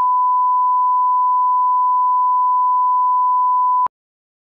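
Steady single-pitch line-up tone of a bars-and-tone video leader, the test tone that accompanies colour bars, cutting off suddenly near the end.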